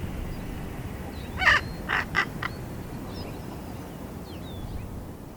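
Young raven, about 13 weeks old, giving a quick run of calls about a second and a half in: one loud call followed by two shorter ones and a faint last one. It is still learning to use its voice box.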